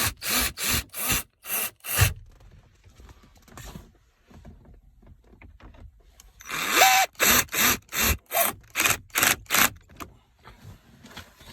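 Power drill driving screws: the motor spins up, then runs in quick short pulses, twice over, a pause of about four seconds between the two runs.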